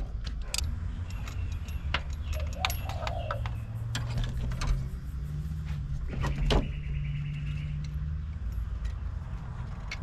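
Scattered metallic clicks and clinks of hand tools, a ratchet and extension, being handled around an engine bay, with a louder clack about six and a half seconds in. A steady low hum runs underneath.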